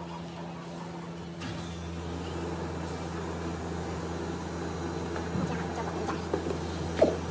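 Steady low machine hum, a little louder from about a second and a half in, under soft handling sounds of adhesive foam strips being peeled and pressed onto a metal bracket, with a sharp tap near the end.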